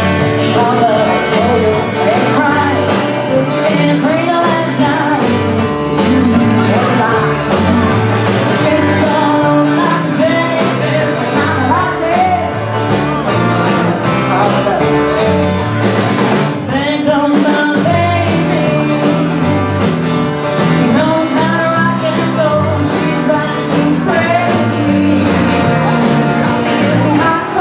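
Live band music: a woman singing over electric guitar, bass guitar and a drum kit, with a short break in the band about seventeen seconds in.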